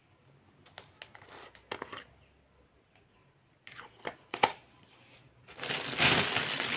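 Clear plastic wrapping crinkling and rustling in the hands, with a few light clicks and taps from handling a plastic cosmetic jar. The crinkling turns loud and continuous in the last second or so.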